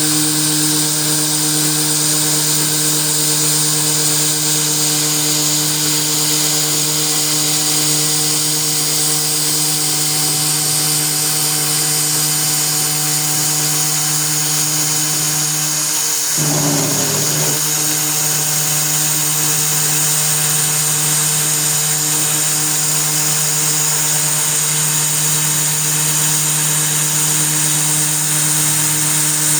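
CNC 3018 desktop router's spindle running steadily while milling aluminium, a constant whine over a hiss of cutting. About sixteen seconds in, the tone breaks and wavers for a second or two, then settles again.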